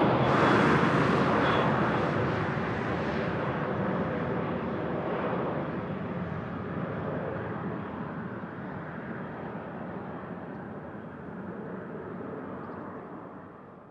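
Engine noise of an airliner that has just passed, dying away steadily as it moves off, then fading out completely near the end.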